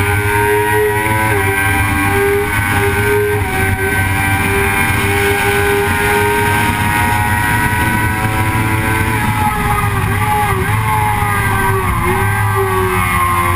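Vehicle engine running hard at speed on a race track, holding a steady high note and then dipping and climbing again several times in the last few seconds, over a rush of wind and road noise.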